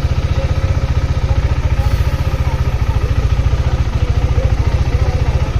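Motorcycle engine idling with a steady, rapid low throb.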